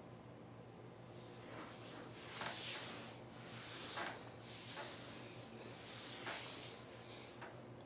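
A person scratching her body with her fingernails close to the microphone, making faint repeated rubbing scratches about one a second that start about a second in.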